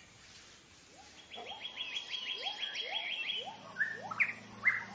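Tropical forest birds calling: a fast run of about ten high notes, lower rising notes repeating about twice a second, then a few loud, sharp chirps near the end.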